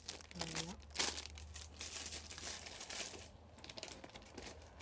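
Clear plastic packaging crinkling as a squishy toy sealed in a plastic bag is handled, with a short break a little after three seconds.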